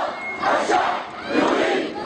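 A large crowd of demonstrators chanting and shouting together, their voices swelling in rhythmic surges about once a second.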